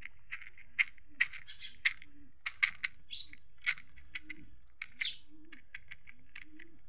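Small dark nail-like pieces tipping out of a cloth bag and clicking onto hard dusty ground in a quick, irregular series of sharp ticks. A faint low rising note repeats about once a second behind them.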